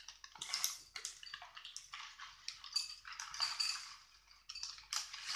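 Plastic cereal bag crinkling as it is handled and tipped to pour cereal into a bowl of milk, in several short rustling bursts.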